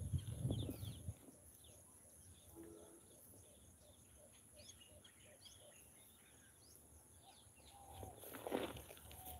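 Wild birds chirping faintly, with a short low rumbling noise in the first second and a brief rustling noise about eight and a half seconds in.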